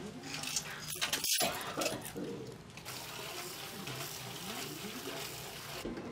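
House ambience with a steady hiss of running water, likely from a tap, and a few light clicks and knocks.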